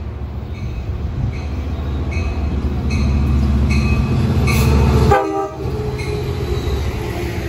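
Long Island Rail Road diesel locomotive hauling bi-level coaches passes through the station at speed. Its engine rumble builds, then drops off suddenly about five seconds in as the locomotive goes by, with a short horn blast at that moment, followed by the coaches rolling past.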